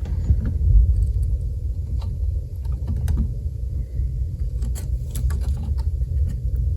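A steady low rumble, with a few faint scattered clicks from handling plastic ribbon-cable connectors and their locking tabs on a circuit board.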